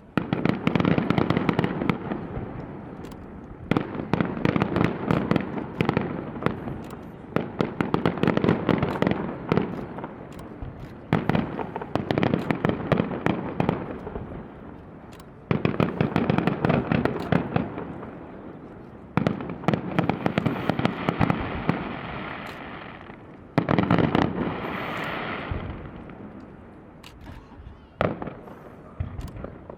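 Aerial fireworks bursting: about seven loud bangs a few seconds apart, each followed by dense crackling that dies away.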